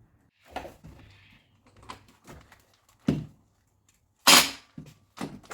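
Hand tools at work on a stuck reverse light switch: scattered metallic clicks and knocks of a socket and wrench, with one louder, short rasping burst about four seconds in.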